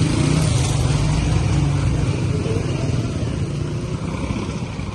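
Street traffic: a motor vehicle's engine running close by, easing off over the last couple of seconds, with the chatter of passers-by underneath.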